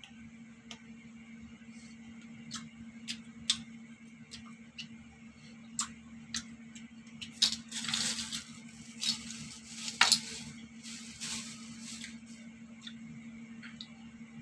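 Scallop shells and chopsticks clicking against each other in a series of sharp ticks as scallops are picked off the tray, then close-up chewing and eating noises from about halfway, over a steady low hum.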